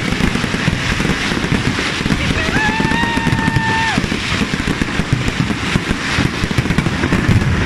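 Fireworks display crackling and popping in a dense, continuous stream of rapid small bangs. A held high tone rises out of it about two and a half seconds in and lasts over a second.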